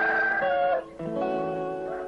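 A rooster crowing, its call dropping in pitch and breaking off a little under a second in, followed by plucked guitar music.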